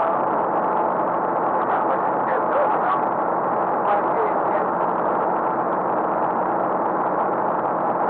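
Vintage truck engine running steadily under way, a loud, even drone.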